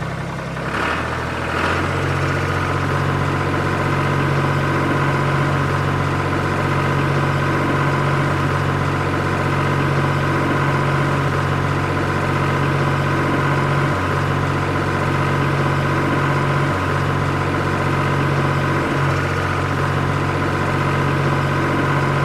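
Tractor engine running steadily at an even speed, a constant hum with no revving.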